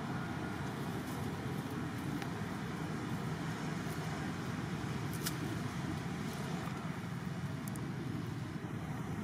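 Steady low rumble of outdoor background noise with a few faint clicks; no monkey calls stand out.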